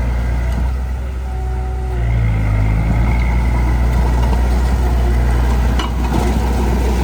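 A heavy-equipment diesel engine running steadily, picking up about two seconds in, with a short clank near six seconds.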